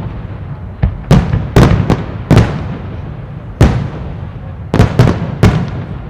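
Aerial firework shells bursting overhead in a display: a run of about nine sharp, loud bangs, some a fraction of a second apart and some with longer gaps, each followed by a short echoing tail.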